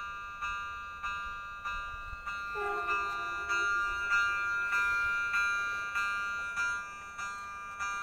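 Level-crossing warning bell ringing over and over, about one and a half strikes a second, each strike ringing on. About two and a half seconds in, the approaching train sounds its horn for about a second and a half, the note stepping down slightly.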